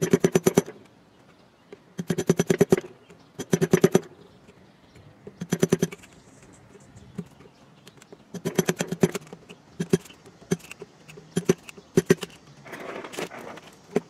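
Rapid, evenly spaced knocking in short rolls of about half a second, each roll a quick run of a dozen or so ringing knocks, repeated every second or two. Near the end the rolls give way to a few single knocks and a brief scrape.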